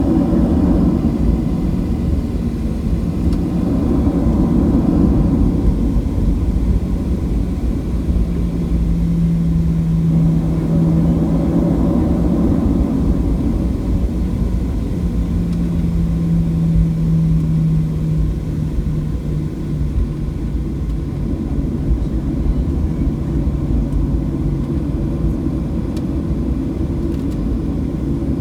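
Boeing 737-700's CFM56-7B jet engines running, heard as a loud, steady low rumble with a droning hum that drops slightly in pitch about 18 seconds in.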